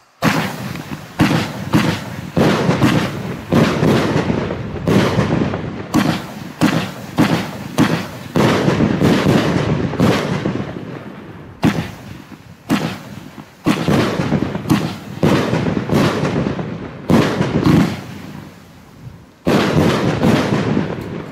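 A 16-shot, 30 mm consumer fireworks cake (battery) firing white strobe and pink star shots. It starts abruptly with a rapid, irregular series of sharp bangs, roughly one to two a second, each trailing off in a noisy tail. There is a short lull shortly before the end, then a final loud burst.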